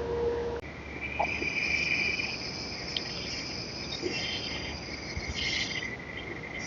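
A steady hum cuts off sharply less than a second in, then crickets chirr steadily, several overlapping high trills at once.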